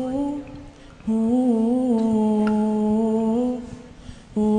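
A cappella group of boys humming long held notes together as the backing of a nasheed, in phrases a couple of seconds long with short breaks between them and small rises and dips in pitch.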